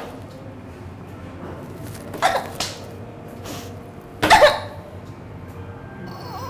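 A woman sobbing: short, loud, choked sobs break out about two seconds in and again about four seconds in.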